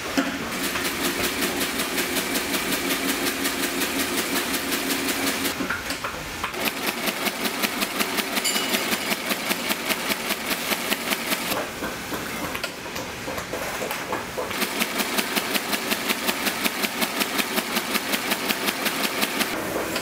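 Heavy industrial boot sole-stitching machine running, a fast, even mechanical clatter of stitch strokes as it sews through the boot's sole edge. It stops briefly a few times and starts again.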